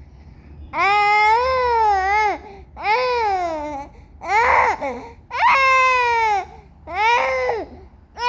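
A baby vocalizing in a series of about five drawn-out, high-pitched calls. Each lasts about a second and rises then falls in pitch, with short pauses between them.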